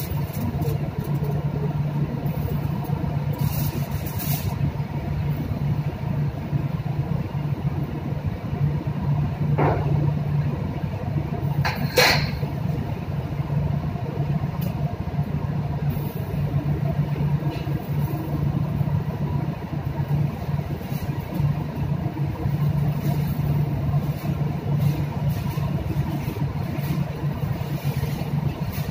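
Steady low drone of a ship's machinery heard inside the galley. Occasional rustles and clatter of kitchen work come over it, the loudest a sharp clack about twelve seconds in.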